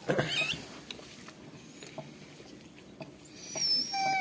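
Newborn pit bull puppy giving a short high squeak just after the start, then faint wet clicks as the mother dog licks it. Near the end comes a thin high squeal, and a whine that starts to fall in pitch.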